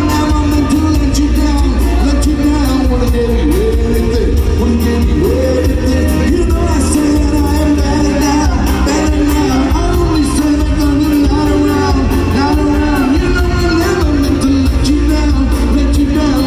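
Live band playing a rock song with a male singer on lead vocals over drums and electric guitar; he is singing his own rewritten lyrics to someone else's song.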